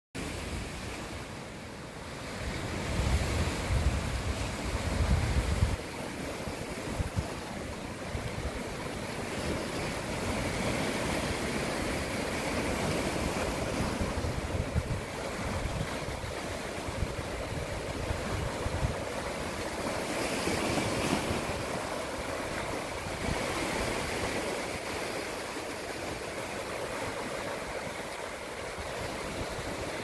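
Sea waves washing and breaking over low rocks along the shore, a continuous surf that swells and eases. From about three to six seconds in, wind buffets the microphone with a low rumble that stops abruptly.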